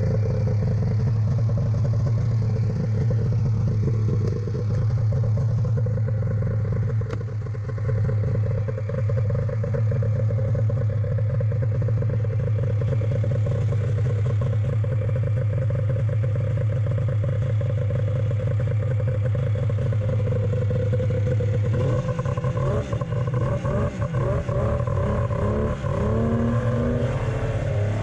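Polaris three-cylinder two-stroke snowmobile engine idling steadily. About three-quarters of the way in, it starts revving up and down repeatedly as the sled gets moving.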